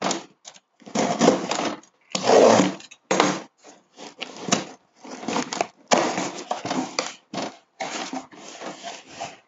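Cardboard shipping box being cut open with a box cutter, its packing tape torn and the flaps pulled back, in a run of irregular scrapes and crackles.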